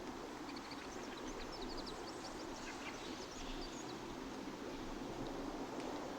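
Songbird chirping in quick, short high notes during the first half, over a steady low background rumble.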